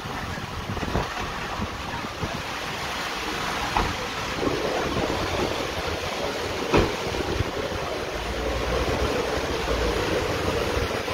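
Heavy rain pouring down in a storm, with strong wind gusting on the microphone. A few sharp knocks stand out, the loudest about seven seconds in, and a steady low hum comes in about halfway.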